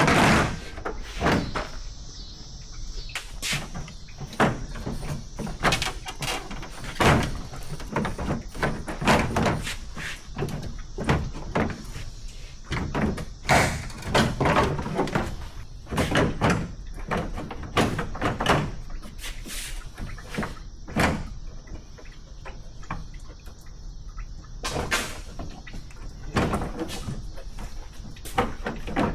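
Irregular knocks, clunks and bangs of hand work taking apart a pickup truck's front end, several a second at times, with short quieter gaps.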